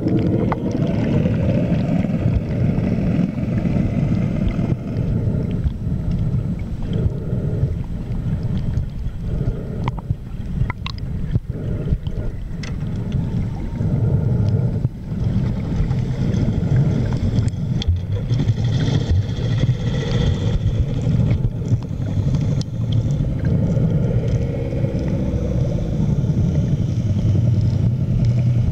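Underwater noise picked up by a camera in its housing: a steady low rumble with scattered sharp clicks.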